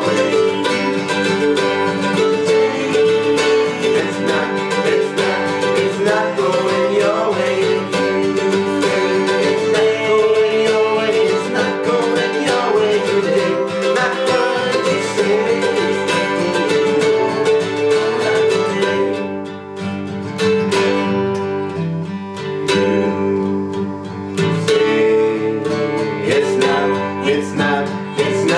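Acoustic country-jazz band music led by plucked guitar. About two thirds of the way through it thins out and drops a little, then the full band comes back near the end.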